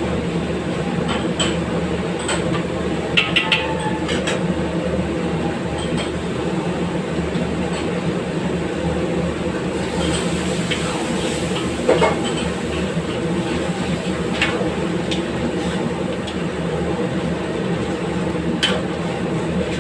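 Steady rumble of a commercial gas range burner at high flame under a wok of chicken curry. A metal ladle clinks against the wok a few times: three quick clinks about three seconds in and a sharper one about twelve seconds in.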